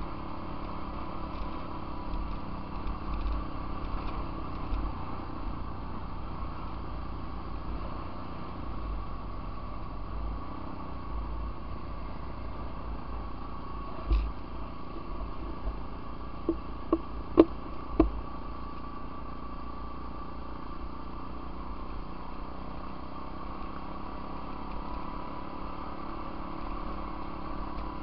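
Apollo 125cc pit bike engine running steadily while riding at a constant pace. A sharp knock comes about halfway through and a quick run of four more follows, the loudest of all a little after the middle.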